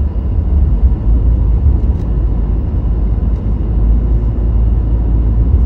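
Car interior driving noise: a steady low rumble of tyres and engine heard inside the cabin while the car rolls along a street.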